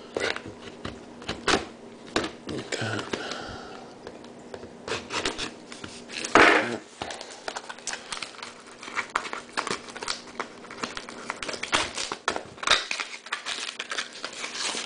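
Foil trading-card packs being pulled out of a cardboard box and stacked on a wooden table: wrappers crinkling, with many light taps and clicks, and a louder rustle about six seconds in.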